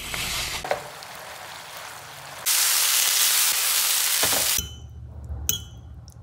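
Food sizzling as it stir-fries in a hot pan. The sizzle gets much louder about two and a half seconds in and drops away abruptly about four and a half seconds in. A sharp click follows near the end.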